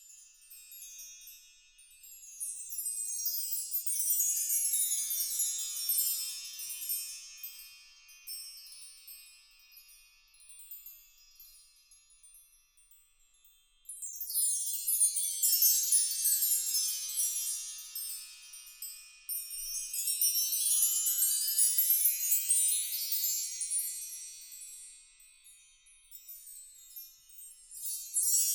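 Bar chimes (a mark tree) swept by a finger, the row of small metal bars ringing out in glissandos that swell and fade away. Several sweeps in turn, in both directions; one starts sharply about halfway through, and another near the end.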